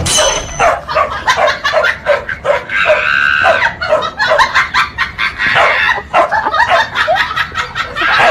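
A dog barking repeatedly in short, quick barks, with one longer high-pitched call about three seconds in.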